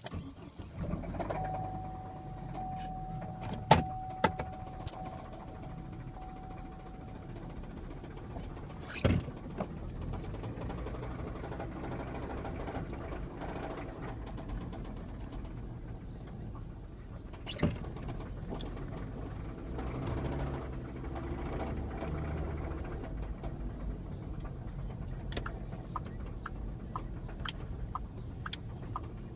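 Chevy Colorado engine running with rod knock, the knocking of a worn connecting-rod bearing. A thin steady whine sounds for the first few seconds, and a few sharp clicks stand out above the running.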